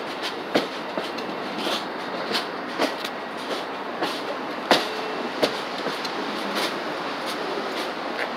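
Amtrak Amfleet passenger coaches rolling slowly past close by, a steady rumble of wheels on rail. The steel wheels click sharply and unevenly over rail joints and switches, the loudest click about halfway through.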